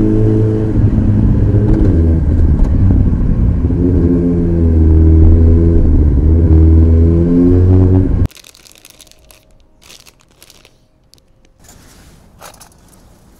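Kawasaki ZX-14R's inline-four engine running through an Akrapovič exhaust at fairly steady revs, its pitch dipping and then rising a little, until it cuts off abruptly about eight seconds in. After that come faint scattered clicks over a quiet background.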